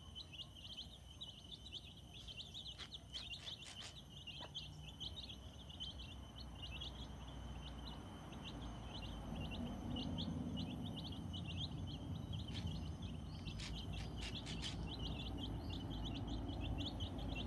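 Domestic chicks peeping continuously in short, rapid high chirps, with a few brief sharp clicks. Under them a low rumble grows louder about halfway through.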